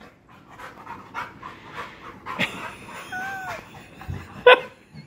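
Dog panting steadily in soft rhythmic breaths, with a short pitched squeak about three seconds in and a single sharp sound about four and a half seconds in.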